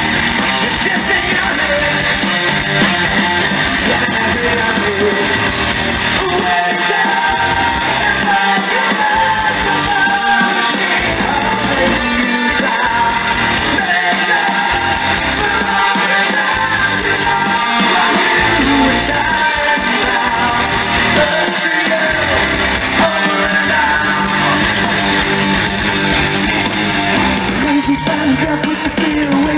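Hard rock band playing live on electric guitar, bass guitar and drums, with a lead vocal sung over it.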